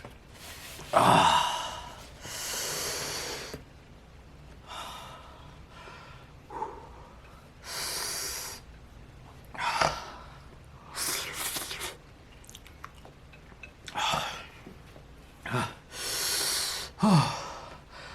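A man gasping and breathing hard through his mouth from the burn of extremely spicy ghost pepper noodles: sharp breaths in and out every second or two, with a few short voiced groans that drop in pitch.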